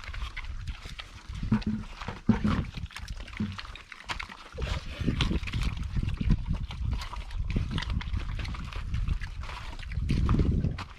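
Pigs grunting, irregular and continuous, with a brief lull about four seconds in.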